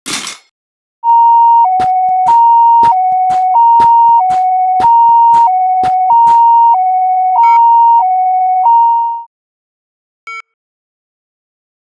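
Two-tone ambulance siren of the Japanese 'pii-poo' type, alternating a higher and a lower tone about every two-thirds of a second for about eight seconds, with sharp clicks over it. It cuts off, and a short beep follows.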